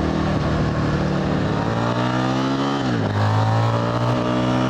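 Ronin 47's Buell 1125 liquid-cooled V-twin engine under way, revs climbing as it pulls, then dropping sharply about three seconds in at a gear change before pulling steadily again.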